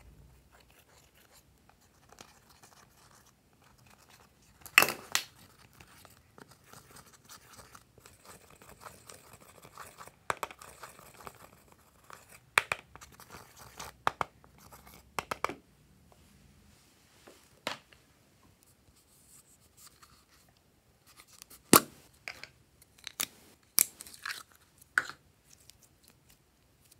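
Pressed eyeshadow being scraped and crumbled out of its pans with a silicone spatula: faint scratching broken by sharp clicks and taps, several in quick succession after about twenty seconds.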